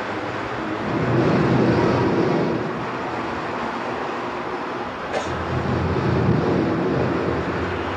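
Steady rushing background noise of an old recording, swelling twice, with a brief click about five seconds in.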